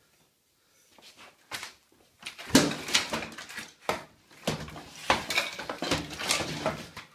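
Mini pool table being smashed: a loud sudden crash about two and a half seconds in, then more knocks mixed with loud whooping and hollering.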